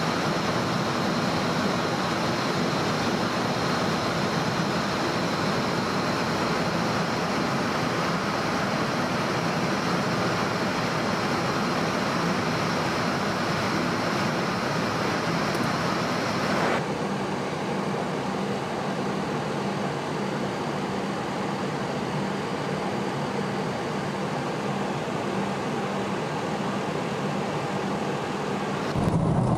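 Steady rush of jet airliner cabin noise in flight: engine and airflow drone heard from inside the cabin. A little over halfway through it switches abruptly to a duller, slightly quieter rush.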